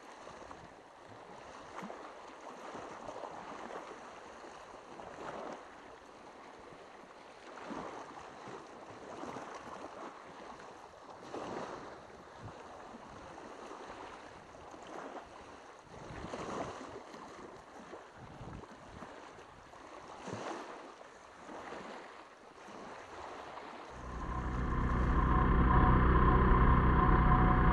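Small waves washing onto a flat rock shore in soft surges every second or few. About 24 seconds in, this gives way to a much louder steady sound: a Honda Fusion scooter riding along a road, its engine running with a deep rumble of wind and road noise.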